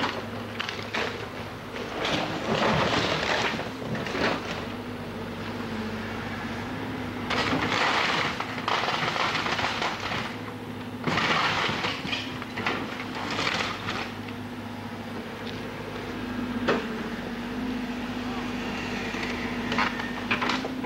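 Timber splintering and crunching in repeated bursts as a burnt-out cabin is torn down, over a steady low hum.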